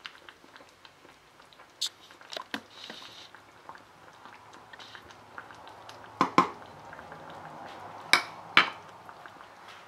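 Wooden spoon knocking and scraping against a frying pan while spooning sauce over chilaquilas in tomato salsa. A few sharp knocks, the loudest coming as two pairs in the second half.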